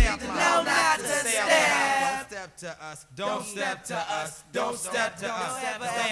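Unaccompanied vocals of a hip-hop soundtrack, with the bass-heavy beat cutting off right at the start and only the voices carrying on.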